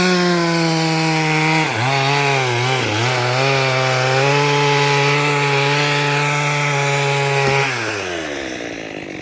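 Two-stroke chainsaw at full throttle, its pitch dropping about two seconds in as the chain bites into the wood and it runs under load. Near the end the throttle is released and the engine winds down to idle.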